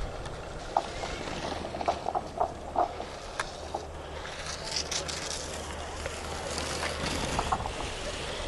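Racing skis carving giant slalom turns on packed snow: the edges make a scraping hiss that grows loud about four seconds in as the racer passes close, over a steady low rumble.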